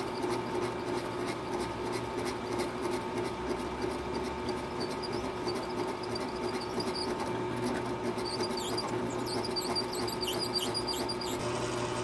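Drill press running with a twist drill cutting through a brass block: a steady motor hum with light scratchy ticks from the cut. The spindle is turning too slow for the size of the bit and for brass.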